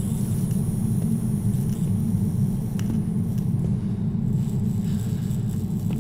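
Steady low rumbling drone, dense and unchanging, with a few faint ticks.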